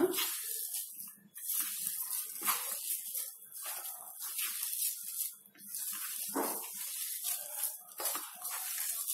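Hands mixing and kneading a moist grated beetroot and mashed potato mixture in a steel bowl: a run of irregular rustling strokes, roughly one a second.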